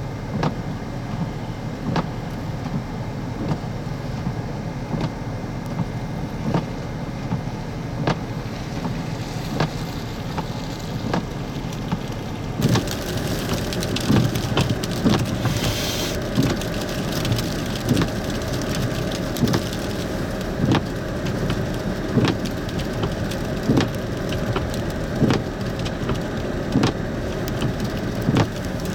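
Vehicle driving through a winter storm: steady road and engine rumble with frequent ticks of rain or sleet hitting the car. About twelve seconds in a hiss rises and regular knocks grow louder.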